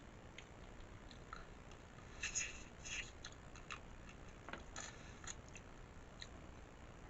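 Faint close-up eating sounds: wet mouth clicks and chewing, clustered most thickly a little over two seconds in and again around three seconds.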